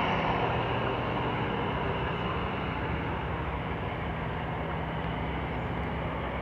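TCDD DE 22000-class diesel-electric locomotive and its passenger train running away into the distance: a steady low engine drone under rail rumble, slowly fading.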